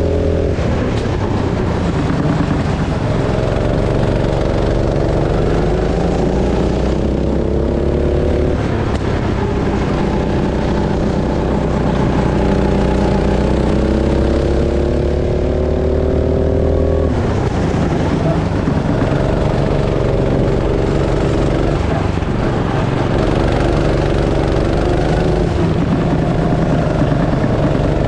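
Go-kart engine running hard, its pitch climbing steadily as the kart accelerates and dropping back briefly about four times before climbing again.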